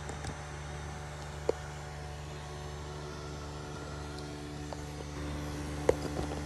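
Steady low hum with several fixed tones inside a car cabin, with a sharp click about a second and a half in and a few light knocks near the end as the phone is handled.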